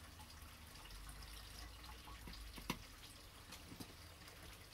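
Faint dripping and trickling of rainwater running through a small filter into a plastic bottle. There is a sharp click nearly three seconds in.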